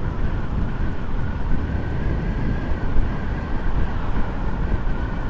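Honda Hornet 900 motorcycle engine running steadily on the move, with wind rushing over the microphone.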